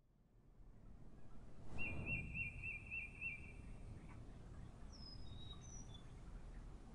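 Outdoor street ambience fading in: a steady low rumble, with a songbird trilling a quick run of about six notes about two seconds in and a few short high chirps later. A brief sound falling in pitch comes with the trill and is the loudest moment.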